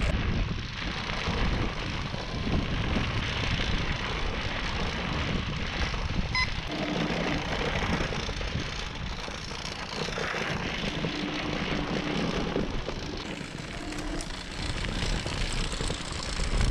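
Riding noise from an electric scooter on a gravel trail: wind buffeting the microphone over the tyres rolling on gravel, with a faint whine from its single motor coming and going a few times.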